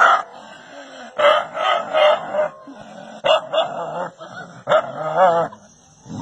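A dog barking in short, separate barks, about half a dozen, with a longer wavering call a little after five seconds in.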